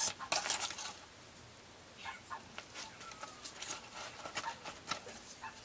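Packaging being handled: clear plastic wrap crinkling and cardboard-boxed eyeshadow palettes being shifted and tapped against each other, as scattered small clicks and rustles, busiest in the first second.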